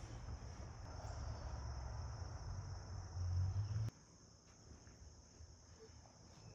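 Insects chirring steadily in an unbroken high-pitched band. Underneath, a low rumble swells just after three seconds in and cuts off abruptly about four seconds in.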